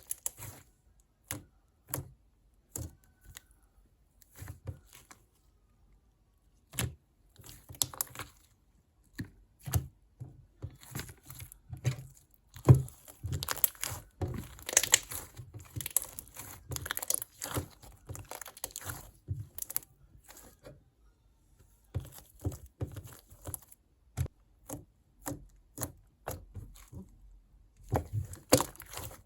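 Slime being squished and pressed by hand, giving irregular sharp clicks, pops and crackles that come in clusters with short gaps between them.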